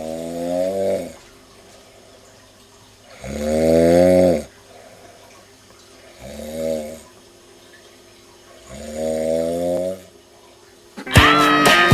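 Loud snoring: four long snores about every two and a half seconds, each with a pitched, buzzing tone that bends up and down. Plucked-string music cuts in near the end.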